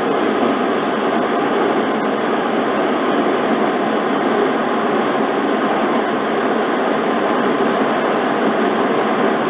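JR 115 series electric train running at speed, heard from inside the carriage: a steady rumble of wheels on rail, with no breaks or changes.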